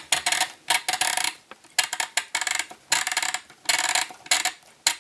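Bosch UDW1 battery flip clock being set by hand: a run of irregular clicks and clattering from its setting mechanism and switches as the alarm is turned on.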